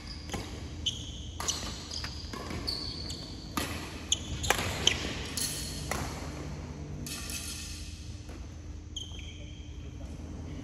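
Badminton rally: sharp cracks of rackets hitting the shuttlecock, coming thick and fast for about the first six seconds, with short high squeaks of shoes on the court floor, which carry on as the hits thin out.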